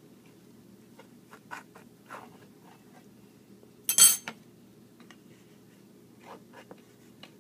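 A utensil cutting into a baked quiche and scraping against its baking dish, heard as short, scattered scratches and taps. About four seconds in comes one sharp clink against the dish, the loudest sound.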